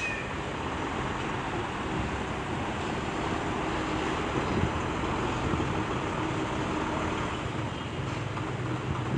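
Heavy diesel excavator engine running steadily, with a steady rush of wind noise on the microphone.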